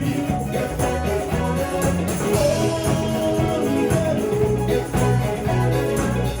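A live band playing, amplified: a drum kit with busy hi-hat and cymbal hits over steady bass notes and a held melody line.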